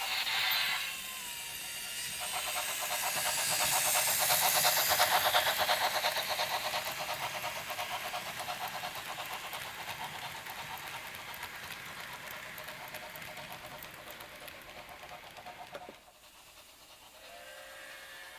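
H0 model train passing close by: the BR 10 steam locomotive's sound decoder gives a short whistle at the start, then the clatter of the locomotive and coaches running on the track swells and slowly fades as the train goes past. The sound cuts off sharply near the end.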